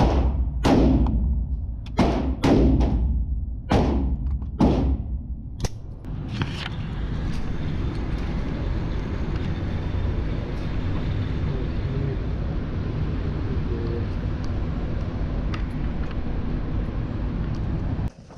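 Gunshots on an indoor shooting range: about seven irregularly spaced shots in the first six seconds, each with a short echo off the range walls. After them a steady rushing noise runs on.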